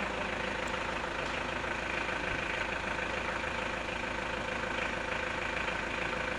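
An engine running steadily at idle, with an even hum that holds constant throughout.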